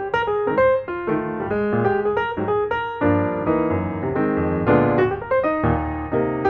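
Background piano music: a quick run of melody notes over sustained chords.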